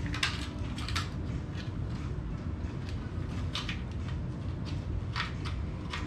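Light scrapes and ticks of a flap pushrod being worked back and forth through its guide tube while searching for the exit hole, over a steady low hum.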